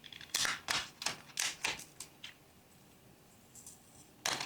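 A quick run of light, sharp clicks and taps from small plastic and metal parts being handled inside an opened laptop. After a quiet gap there is another cluster of clicks near the end.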